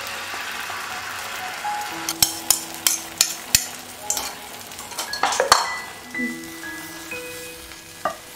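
Omelette batter sizzling in hot oil in a frying pan, then a run of sharp clinks and knocks of utensils on the pan from about two seconds in, over background music with held notes.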